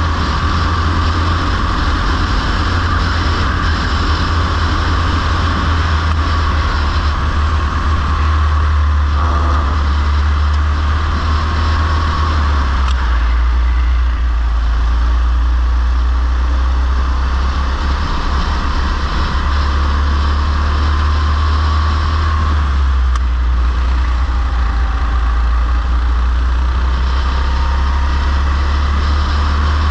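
Go-kart engine running at racing speed, heard from an onboard camera, with a heavy low rumble underneath. The engine note shifts a few times as the kart goes through corners.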